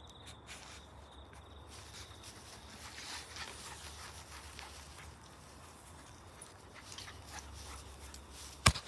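Faint rustling and light footfalls on a grass lawn, with a sharp knock near the end.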